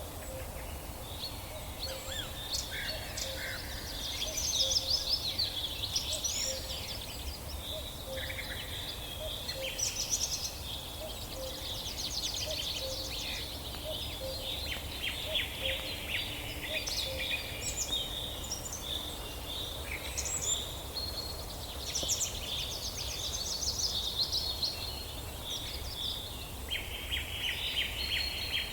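Several birds calling and singing at once, a chorus of overlapping chirps and rapid trills, over a steady low background rumble.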